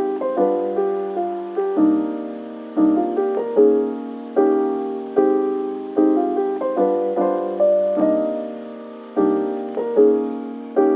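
Background music: a mellow keyboard piece in which piano-like notes are struck and left to fade, with chords under a simple melody.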